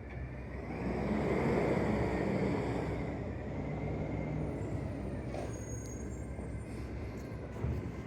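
Motor vehicle going past on the road, loudest between about one and three seconds in, then settling to a steady low engine hum.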